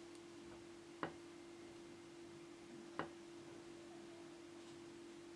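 Very quiet steady low hum, with two light clicks about two seconds apart as a paint marker's tip taps against a pot while drawing on it.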